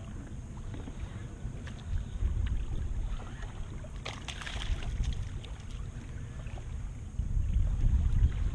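Wind buffeting the microphone on a drifting fishing boat, a low rumble that swells in gusts about two seconds in and again near the end, with a brief burst of higher hiss and clicks about four seconds in.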